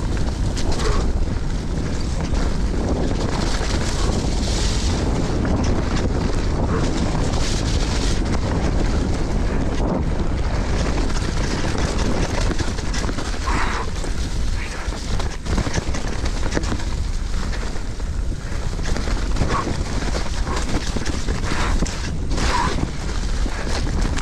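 Steady wind rumble on the microphone over the tyre noise of an enduro mountain bike riding fast down a dirt trail strewn with dead leaves.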